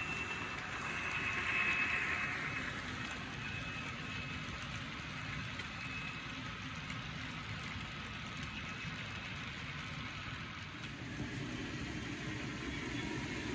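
HO scale model train of Santa Fe GP30U and GP20U diesels and covered hoppers running past, giving a steady low diesel-engine rumble with a faint high whine over it.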